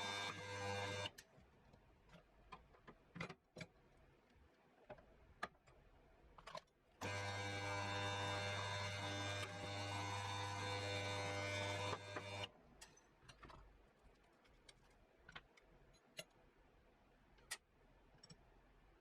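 Power drill running in two bursts, one ending about a second in and a longer one of about five seconds in the middle, with small clicks and taps of metal parts being handled between them.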